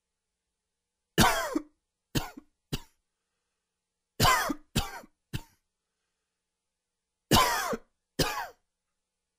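A man's dry, wheezy cough, coming in three quick bouts of about three, three and two coughs, an allergy cough.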